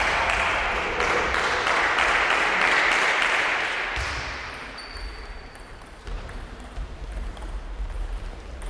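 Hall spectators clapping after a table tennis point. The applause is loudest in the first few seconds, then fades out about halfway through. A few light clicks of the table tennis ball follow near the end.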